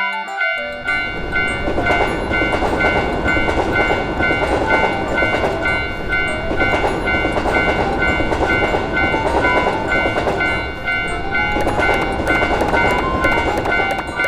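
A train running through a railroad crossing: a loud, continuous rumble of the train going by starts about half a second in, over the crossing's warning bell ringing steadily.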